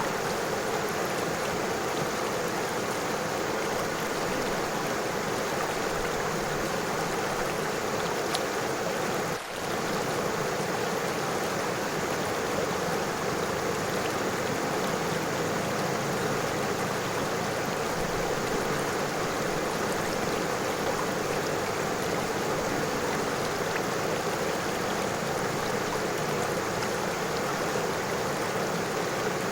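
River water flowing over stones, a steady, continuous rush with a brief dip in level about nine seconds in.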